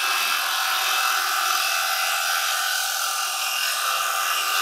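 Wood lathe spinning a silver birch bowl at about 2500 RPM, a steady whir, while a carbide chisel takes a light, clean finishing cut that can hardly be heard over the machine.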